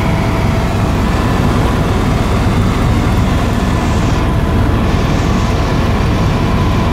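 Helicopter engine and rotor running steadily, heard from inside the cabin in flight: a loud, even drone.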